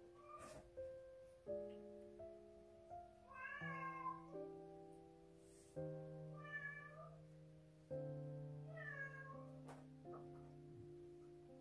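A domestic cat meowing three times, short arched calls a couple of seconds apart, over soft background piano music.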